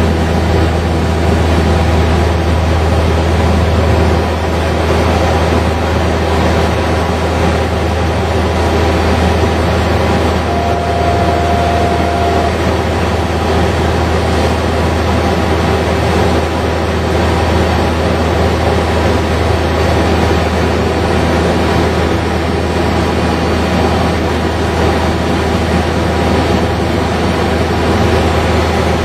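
Saab 340 cockpit noise in flight: its twin General Electric CT7 turboprops and propellers make a loud, steady, deep drone. About ten seconds in, a short steady tone sounds for about two seconds.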